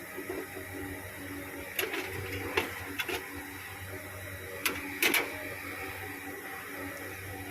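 CNC pipe-bending machine powered up and running, giving a steady electrical hum with a faint whine. About six sharp clicks come from around two to five seconds in.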